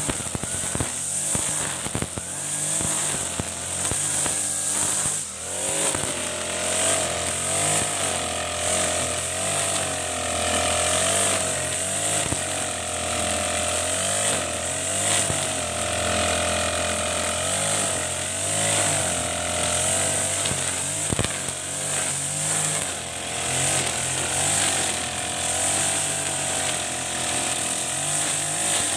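Backpack brush cutter with an Ogawa GX35-type four-stroke engine running under throttle while its nylon line cuts tall grass. The engine speed rises and falls, with a brief dip about five seconds in.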